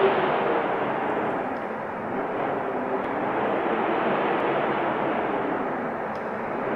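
Wind blowing in a steady rush that swells and eases, dropping a little about two seconds in and then building again.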